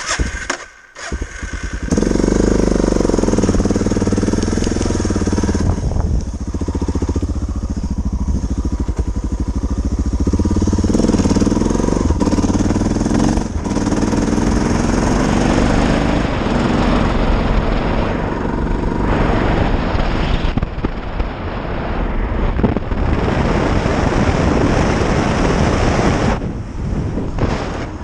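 Suzuki DR650's single-cylinder four-stroke engine running under way, its pitch rising and falling with throttle and gear changes, loud from about two seconds in.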